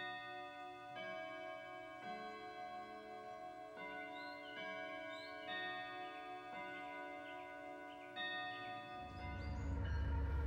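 Grandfather clock's brass tubular chimes ringing a slow melody of about eight notes, each note left to ring on under the next. About nine seconds in, the low rumble of a passing diesel freight locomotive rises in.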